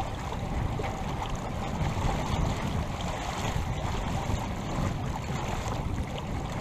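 Steady rush of wind and water on a sailboat under sail, the wind rumbling on the microphone and the water rushing along the hull.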